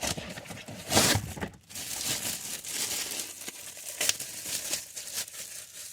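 Packaging of a new cabin air filter crinkling and tearing as it is opened and handled, with a loud rustle about a second in, then steady crinkling.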